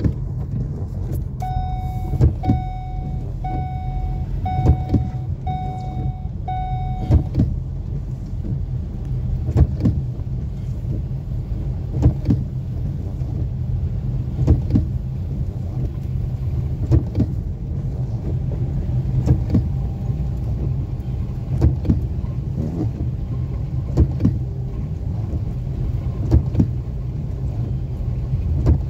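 Inside a moving car on a wet road: steady low engine and road rumble, with a sharp knock about every two and a half seconds as the windscreen wipers sweep. In the first seven seconds an electronic beep sounds six times, about once a second.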